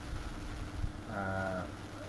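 A man's voice holding one drawn-out syllable for under a second, about a second in, over a faint steady hum.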